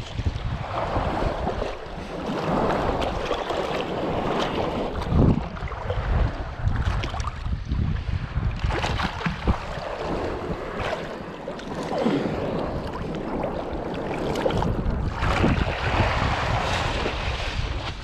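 Wind buffeting the microphone in gusts over water sloshing and splashing around a kite hydrofoil board in shallow surf, with a few sharp knocks.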